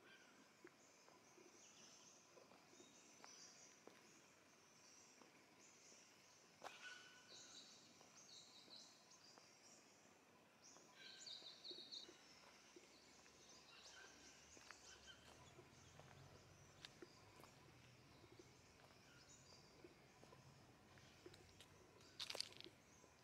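Faint forest birdsong: many short, high chirps and brief call phrases from several birds, scattered throughout. There are a few sharp taps, the loudest about a third of the way in and near the end, and a faint low hum in the second half.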